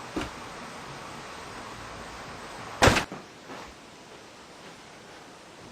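A door slammed shut with one loud bang about three seconds in, followed by a couple of lighter knocks. A smaller knock comes just after the start.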